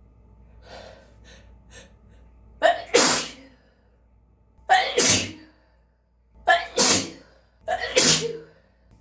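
A person sneezing four times in a row, roughly every one and a half to two seconds. Each sneeze is a brief voiced intake followed by a loud, explosive, spraying burst.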